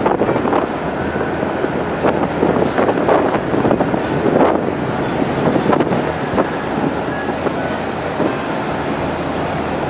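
Strong wind buffeting the microphone on the open deck of a ferry at sea, gusting unevenly and mixed with the rush of the sea, over a low steady hum.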